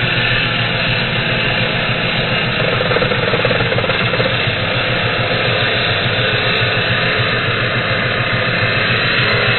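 Handheld angle grinder with a cut-off disc cutting through the thick steel end of an excavator arm: a loud, steady grinding noise that holds without a break.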